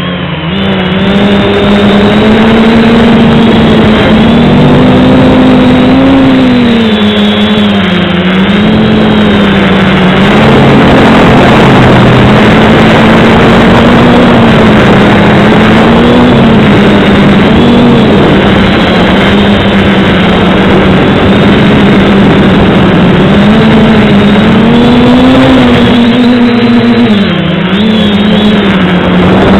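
An FPV aircraft's electric motor and propeller whining close to the onboard camera. The pitch rises and falls as the throttle changes, and dips briefly near the end.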